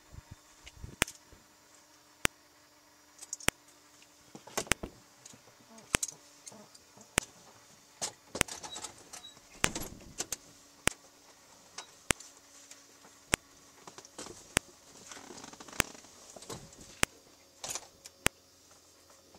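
Sharp clicks at a steady pace, about one every second and a quarter, with soft rustling and handling noise between them.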